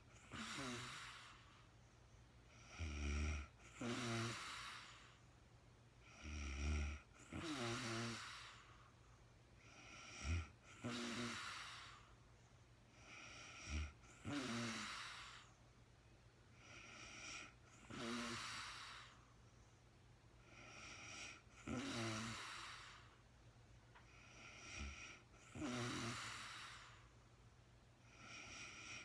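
A sleeping woman snoring with slow, regular breaths, about eight in all. Each is a short low snore followed by a longer airy breath.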